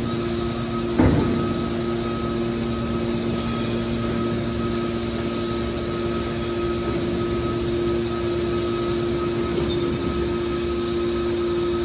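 Hydraulic metal scrap baler running: a steady machine hum from its motor and pump, with one sharp metallic knock about a second in.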